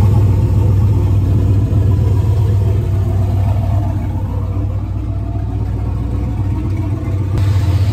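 Turbocharged LS V8 idling steadily with a deep, even rumble.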